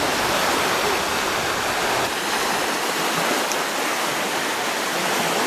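Choppy lake water washing steadily onto a pebble beach in a strong wind, an even rushing noise.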